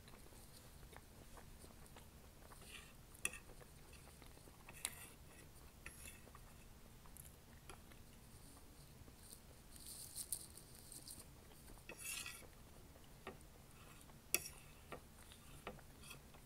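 Faint close-up chewing and mouth sounds of eating coconut cream pie, with a few sharp clicks and scrapes of a metal fork on a ceramic plate, the loudest just after 3 seconds and near 14 seconds.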